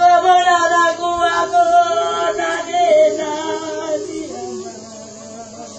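Singing in long, wavering notes, loudest at the start and growing quieter over the last couple of seconds.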